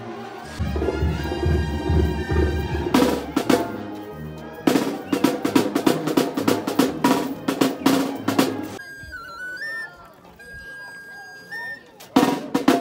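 Snare drum played in fast rolls and beats. A thin, high piping melody sounds for a couple of seconds after the rolls stop, about nine seconds in, before the drum comes back near the end.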